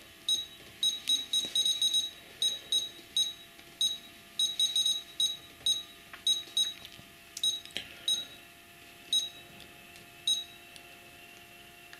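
Futaba T8FG radio transmitter beeping as its keys are pressed, one short high beep for each step while a throttle-curve value is stepped down. About two dozen beeps, quick at first and then more spaced out, the last one near the end.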